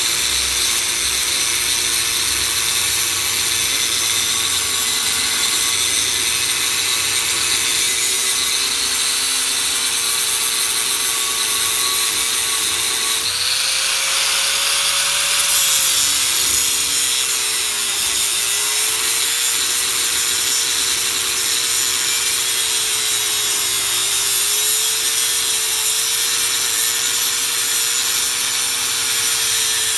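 Electric angle grinder running continuously against steel, its motor whine sagging and recovering as it is pressed into the work, over a steady grinding hiss.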